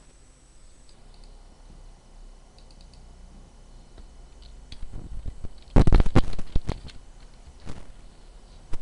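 Computer keyboard typing: a quick run of loud key strikes about six seconds in, then a single key or click stroke a second later, with a few faint clicks earlier on.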